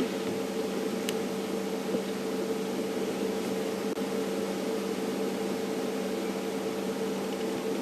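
Steady low hum with a few fixed tones under an even hiss, unchanging throughout.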